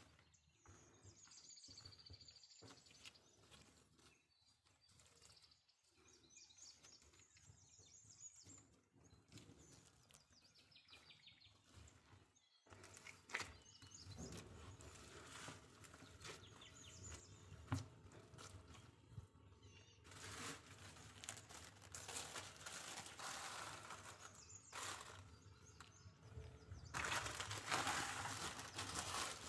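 Hands mixing and kneading crumbly ka'ak cookie dough in a bowl: quiet, irregular soft scraping and squishing that gets louder about halfway through. Near the end a plastic bag crinkles loudly.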